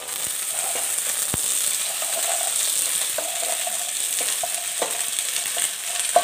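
Hot oil sizzling in a kadhai as fresh green peas are dropped by hand onto frying sliced onions, with scattered light knocks through the steady sizzle and a sharper one near the end.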